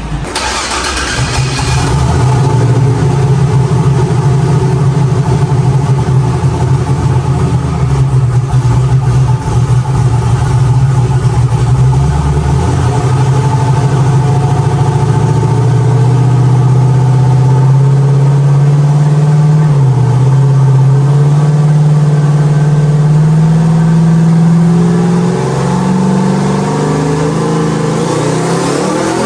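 Turbocharged, methanol-fuelled Chevy Nova engine running hard on a chassis dyno during a pull. The engine note holds fairly steady at first, then rises slowly as the revs climb, with a faster rise in pitch near the end.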